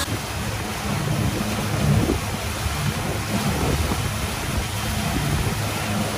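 Pontoon boat under way: its Yamaha outboard motor running steadily, with water churning in the wake and wind buffeting the microphone.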